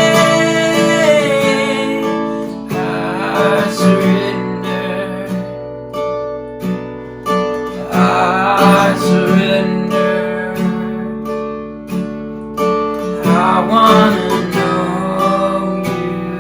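Worship band music: an acoustic guitar strumming chords over sustained held notes.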